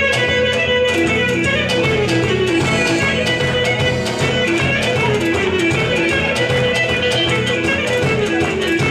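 Greek Thracian folk dance music: a busy, repeating melody over a steady bass and beat, with no singing.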